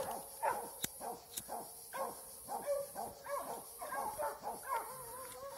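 Hunting hound barking and baying at a wild boar it is holding at bay, a quick run of short barks, a few each second, somewhat faint and a way off in the brush.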